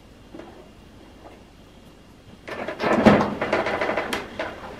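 The plastic water tank of a portable dehumidifier is pulled out of its housing, a scraping, clattering slide of plastic on plastic starting about two and a half seconds in after a quiet stretch. The tank is full to the brim and is being removed to be emptied.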